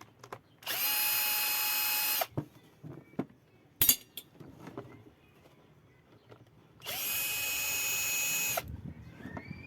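Electric drill driving screws out in two runs of about a second and a half each, a steady whine that climbs briefly as the trigger is pulled and then cuts off. A sharp click falls between the two runs.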